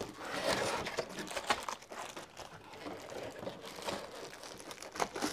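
Plastic wrapping crinkling as bagged trellis pieces are handled and set down, followed by lighter rustling, scraping and a few sharp knocks as a molded-pulp cardboard packing insert is lifted out of the box.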